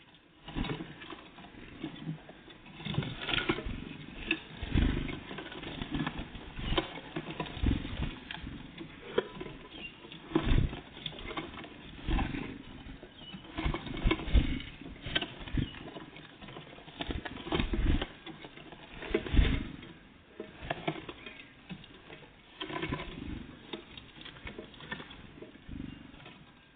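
Great tits and blue tits feeding: an irregular patter of pecking taps, scratches and a few dull knocks of small birds landing and hopping about.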